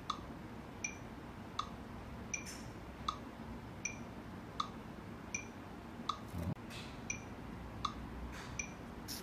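Phone metronome app clicking a steady beat, about four clicks every three seconds (roughly 80 beats a minute), keeping time for a putting stroke. A soft low thump comes about six and a half seconds in.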